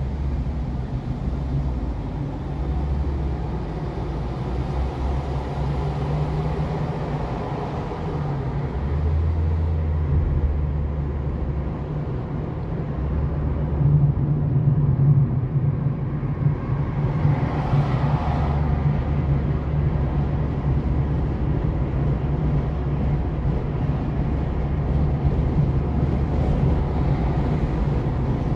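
Car driving on a multi-lane road, heard from inside the cabin: a steady low engine and road rumble, with a brief louder whoosh a little past the middle.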